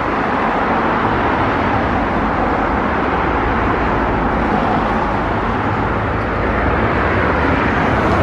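Steady traffic noise from cars and vans passing on a busy multi-lane road.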